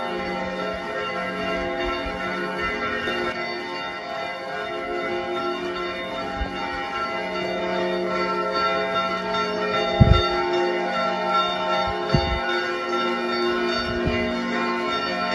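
Church bells ringing, many overlapping tones sounding together and sustaining, with a few low thumps about ten and twelve seconds in.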